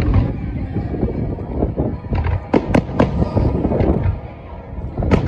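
Fireworks display: aerial shells bursting overhead, a run of sharp bangs between about two and four seconds in and another right at the end, over a low rolling rumble.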